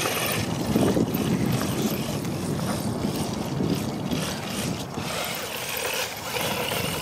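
Haiboxing 2995 RC desert truck driving through snow, its tyres churning the snow and slush as it runs.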